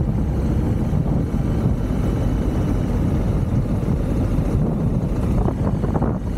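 Steady low rumble of a motorcycle ride at speed, wind buffeting the microphone over engine and road noise. It turns rougher and more fluttering near the end.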